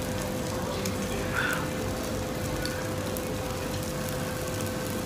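Steady hiss and crackle of food cooking at the table, over a constant hum, with a few faint clicks.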